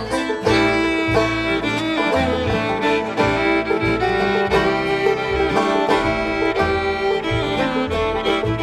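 Bluegrass band playing an instrumental passage: fiddle and banjo carrying the tune over guitar and bass on a steady beat.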